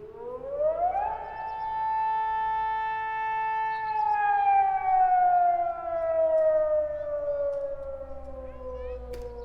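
Outdoor civil-defense warning siren sounding a storm warning. It winds up in pitch over about a second, holds a steady wail, then slowly winds down, its loudness swelling and fading.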